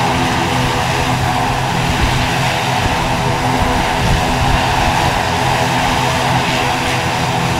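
Aircraft engines running loud and steady, a whine at constant pitch over a low rumble.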